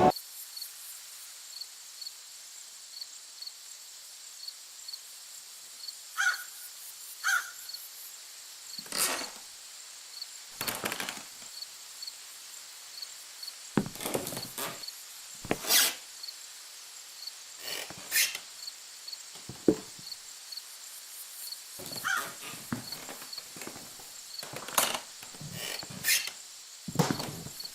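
Sparse short knocks and scrapes, about fifteen of them spread unevenly, over a faint hiss with a soft tick about once a second.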